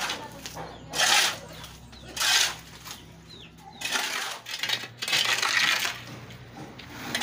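Steel shovel scraping across a concrete surface as wet concrete mix is scooped up into a bucket: several harsh scrapes, about one a second.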